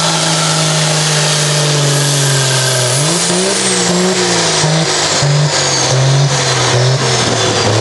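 Dodge Ram pickup truck's engine revving hard while hooked to a pulling sled: a steady high-rev note, then from about three seconds in the revs swing up and down repeatedly.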